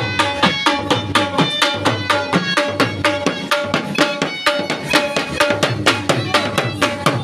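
Music with a fast, even drum beat of about five strokes a second under a held melody line.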